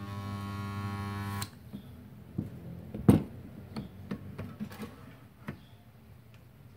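Portable 2.5 kVA mini spot welder's transformer giving a loud, steady electrical buzz for about a second and a half, then cutting off sharply, as weld current passes through two 0.5 mm steel plates (1 mm in all) clamped between the copper electrode arms. About three seconds in comes a sharp metallic clack, followed by a few lighter knocks and clicks.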